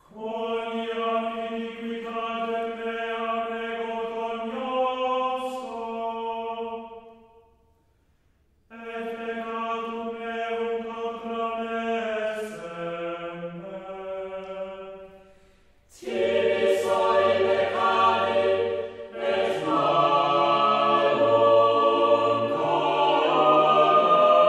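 Background choral music: voices holding long, slowly changing chords in phrases, with two short breaks about 7 and 15 seconds in. It grows fuller and louder from about 16 seconds in.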